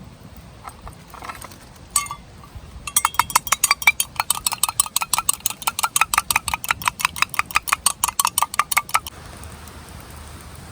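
Rapid, even metallic clinking of a utensil against camp cookware: about seven strikes a second, lasting some six seconds and stopping abruptly.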